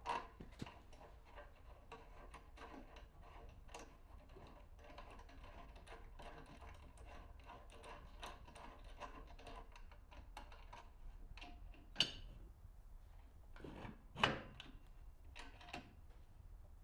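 Hand screwdriver turning a screw in a drill press's cast table bracket: a run of faint, irregular ticks of metal on metal, with two louder knocks near the end.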